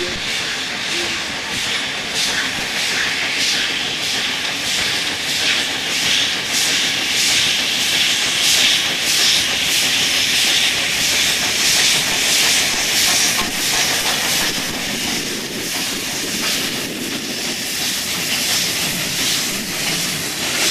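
East African Railways class 59 Garratt steam locomotive working a train past, its exhaust coming as a steady, even chuffing over a constant hiss of steam. The sound is loudest around the middle as the engine draws level, easing a little as the tank wagons follow.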